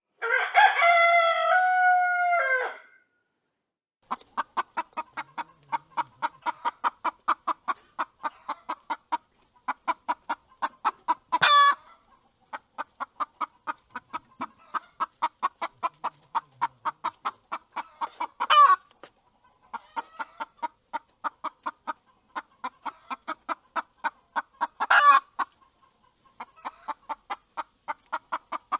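A rooster crows once, a long call of nearly three seconds. Then comes a steady run of rapid clucks, about four a second, broken three times by a short, loud squawk.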